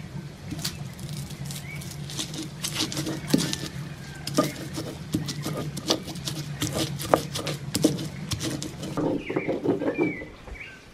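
Toasted dried guajillo chiles crackling and crunching as they are torn by hand and pressed with the stone pestle in a volcanic-stone molcajete: a quick, uneven run of dry crackles and clicks.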